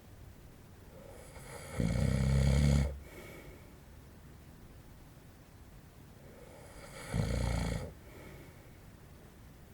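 An adult man snoring in his sleep: two deep snores about five seconds apart, each with a softer breath leading into it, the first longer and louder than the second.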